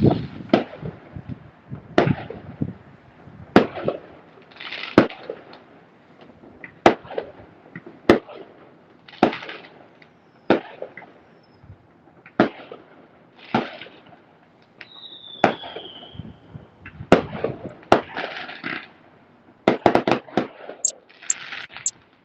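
Fireworks going off: sharp bangs about once a second, several followed by crackling, with a short falling whistle about two-thirds of the way through and a quick run of cracks near the end.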